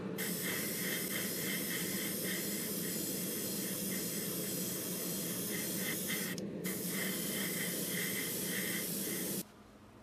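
Paint sprayer hissing as it coats a Zippo lighter with white paint. It pauses briefly about six and a half seconds in and stops shortly before the end.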